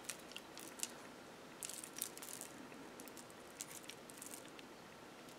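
Faint clinking and jingling of glass beads and small metal charms on beaded dangles being handled and turned over in the hand, in two short spells about one and a half seconds and four seconds in.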